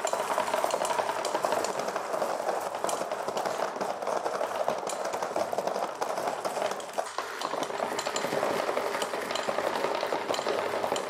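3D-printed automatic marble sorter running flat out at about 11 marbles per second: a dense, continuous, loud clatter of metal marbles rattling along its chain conveyor and dropping into the sorting bins.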